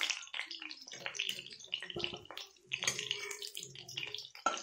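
Cauliflower florets sizzling in hot oil in a steel kadhai, with a slotted steel spoon scraping and clicking against the pan as the fried pieces are lifted out.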